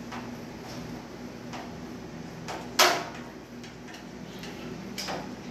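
Screwdriver working a screw into a metal shelf bracket on a steel griddle-cart frame: a handful of scattered metallic clicks and knocks, the loudest a sharp knock nearly three seconds in.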